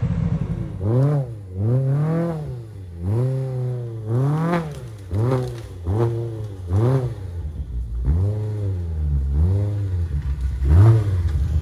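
Side-by-side engine revving up and dropping back again and again, about ten throttle blips roughly a second apart, over a steady low engine rumble.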